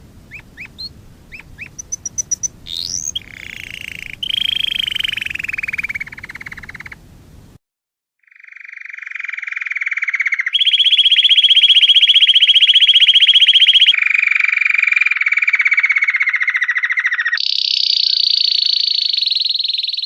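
Domestic canary singing: a few short separate chirps and warbled notes, a brief break, then a chain of fast, even trills, each held at one pitch for a few seconds before switching to a higher or lower one, one of them sliding slowly downward.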